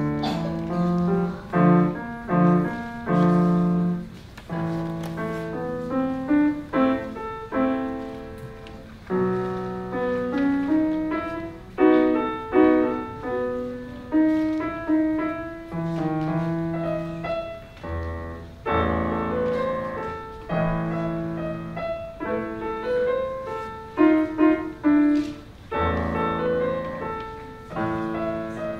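Piano playing a piece in short phrases of chords and small melodic figures, each struck and left to ring, with brief breaks between phrases. Deep bass notes come in about two-thirds of the way through and again near the end.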